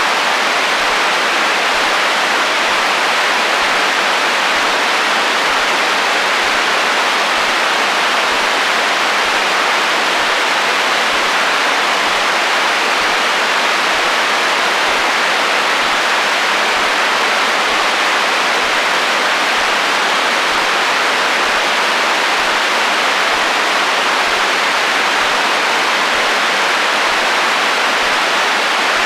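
Radio static from an untuned receiver: steady hiss of interference noise with no voice or tones in it.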